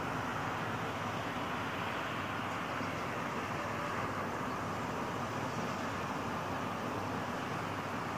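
Steady, even hum of distant city traffic, with no single vehicle standing out.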